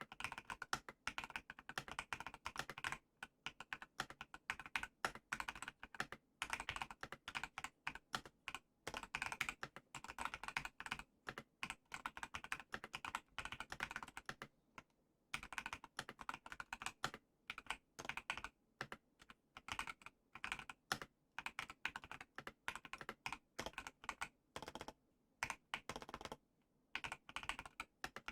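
Typing sound test on a custom 60% keyboard with Everglide Aquaking 55g linear switches, a polycarbonate plate and a frosted acrylic TOFU60 case: rapid key clacks in runs of a few seconds, broken by two short pauses.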